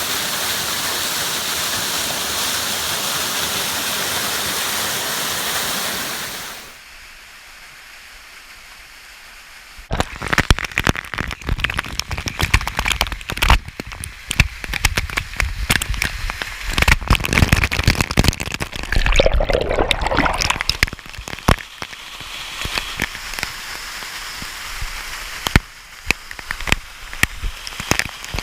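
Waterfall rushing as a loud, steady wash of water noise, which drops to a quieter rush about six seconds in. From about ten seconds in the sound turns uneven and crackly, with many sharp pops and surges over the water.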